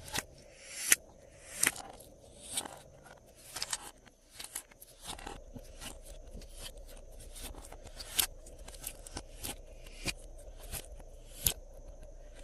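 Glossy slime being worked by hand, giving sharp clicks and pops about once a second, then a denser run of smaller crackles and pops from about four seconds in.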